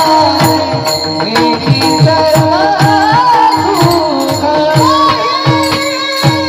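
A male vocalist sings an ornamented, wavering melody over a steady held drone. A hand drum keeps time with about two low strokes a second, each falling in pitch, and small jingles or cymbals shimmer along with it.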